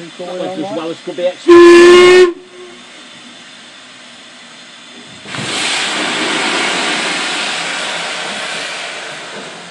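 A steam locomotive's whistle gives one short, very loud blast on a single note. A few seconds later steam hisses out loudly for about four seconds, slowly fading.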